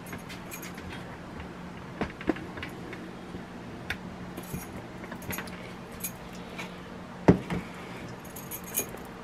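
Scattered light clinks and knocks from hands handling a stainless steel mixing bowl on a kitchen counter, with a metallic jingle of bracelets and a sharper knock about seven seconds in, over a steady low hum.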